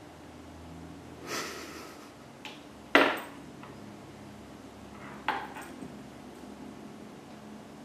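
A few sharp knocks or clinks on a hard surface: a loud one about three seconds in that rings briefly, and a second about two seconds later followed by a few small ticks. A short rustle comes just over a second in, before the first knock.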